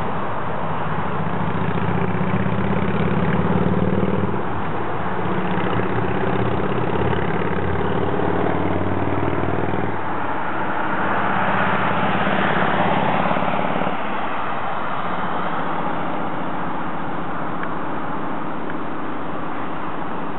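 Vehicle engine running at a steady pitch, with the hiss of road traffic. About halfway through the engine tone fades and a rush of passing-vehicle noise swells and eases off.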